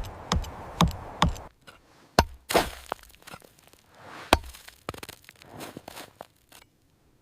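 Sharp chopping strikes: three in quick succession, about two a second, in the first second and a half, then a few sparser, softer knocks, one of them with a brief cracking rasp after it.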